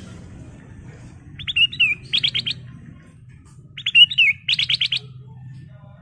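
Ruby-throated bulbul (kutilang emas) singing two matching song phrases a couple of seconds apart. Each phrase is a few quick notes, a slurred warble, then a rapid run of five or six sharp notes. A faint low hum runs underneath.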